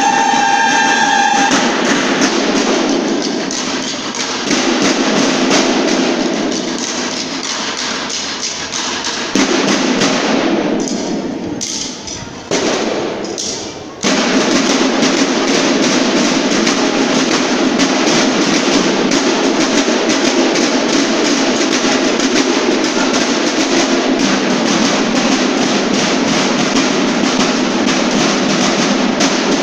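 Banda de guerra drum section playing a cadence on snare and bass drums, with the bugles' last held note cutting off just after the start. The drumming drops away briefly about a third of the way in, then comes back in full and runs on steadily.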